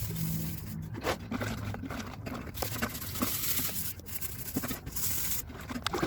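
A saucepan being scrubbed by hand with steel wool: irregular scraping and rubbing strokes with light clinks and knocks of the metal pan.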